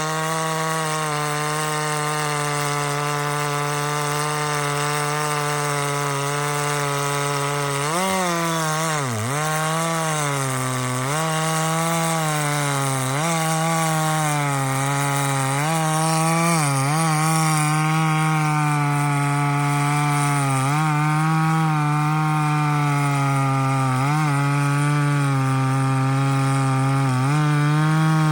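Stihl 046 two-stroke chainsaw with a dual-port muffler running at full throttle. It is steady for about the first eight seconds, then its pitch dips and recovers every couple of seconds as the 28-inch full-skip chain loads up in the cut.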